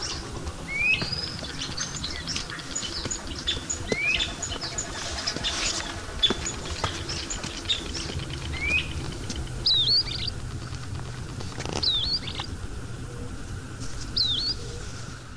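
Birds chirping and calling. A whistled call rising in pitch repeats every few seconds, and sharp hooked chirps come about two seconds apart in the second half, over a low steady rumble.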